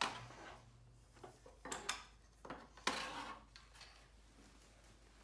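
Light clatters and knocks as the Honda Rebel's front fender is handled and lifted free of its mounts: three or four short clusters over about three seconds.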